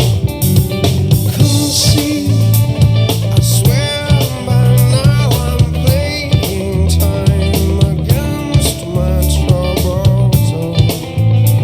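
Music played back on a DOSS SoundBox XL Bluetooth speaker: guitar over drums with a heavy, pulsing bass line.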